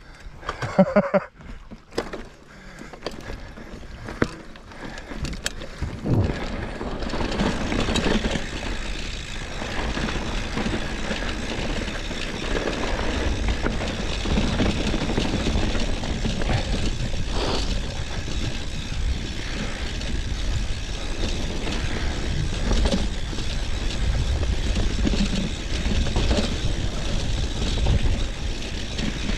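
Mountain bike rolling over a rough, stony dirt trail, heard from a handlebar-mounted camera. A few sharp clicks and knocks come at first. About six seconds in, a steady loud rush of wind on the microphone sets in, mixed with tyre noise and the bike's rattle.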